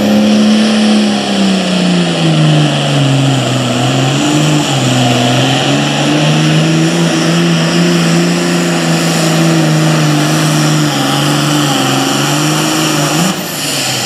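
International 1066 super farm pulling tractor's diesel engine running flat out under the load of the pulling sled. Its pitch is pulled down over the first couple of seconds as the sled bites, then holds nearly steady with slight wavers down the track. Near the end it rises briefly and then drops away.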